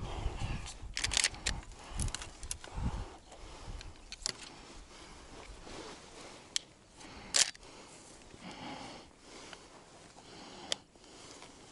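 A person shifting about inside a hide of dry grass and reed netting: rustling and handling noises, with dull thumps in the first three seconds and scattered sharp clicks, the loudest about seven seconds in.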